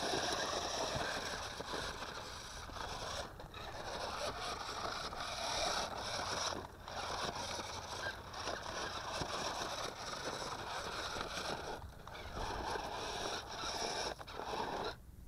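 UD2168A transforming RC rock crawler's electric drive motors and gears whirring as it climbs over gravel and rocks, cutting out briefly a few times as the throttle is let off.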